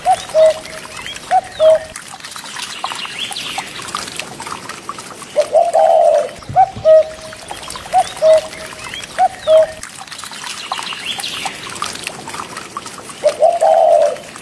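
Short, high animal calls repeated in clusters over a steady trickle of running water; the calls are the loudest sounds.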